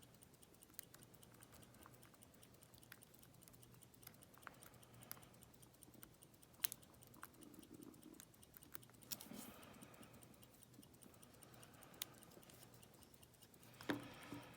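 Faint, scattered clicks of a lock pick and tension wrench working the pin stack of a Master Lock 401 padlock, about a dozen at irregular intervals, over a low steady hum.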